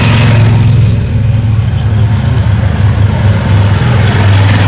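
Motor vehicle engine running close by: a loud, steady low hum that holds its pitch.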